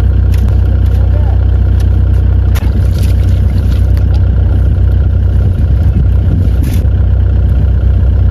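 Mini excavator's diesel engine idling with a steady low drone. Every few seconds come short wet slaps and splashes as silver carp are handled in a muddy puddle.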